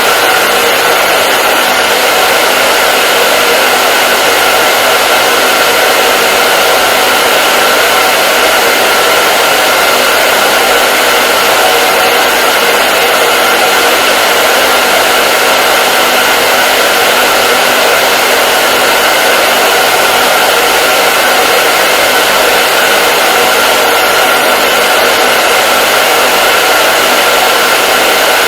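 Hair dryer running continuously with a steady, even rushing of air and a faint constant tone from the motor and fan.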